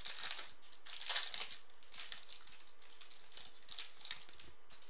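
Foil trading-card pack wrapper crinkling as it is torn open and peeled away from the cards, in short bursts that are loudest at the start and about a second in, then fainter.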